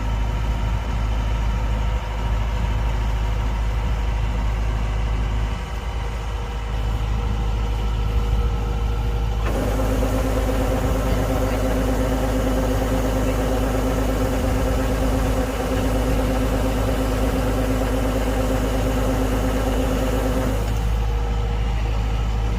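Kubota DC-105X combine harvester's engine and machinery running steadily with a deep hum. About nine seconds in, a higher whine with more hiss sets in as another part of the machine engages. It runs for about eleven seconds, then drops away again.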